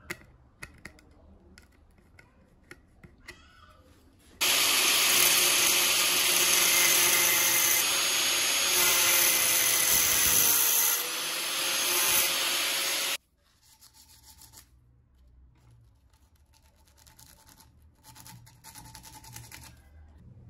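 Angle grinder with a thin abrasive cutting disc slicing a slot into the head of a stainless steel bolt, running loud and steady for about nine seconds, starting and stopping abruptly, its pitch dipping slightly under load partway through. A few light clicks of handling come before it.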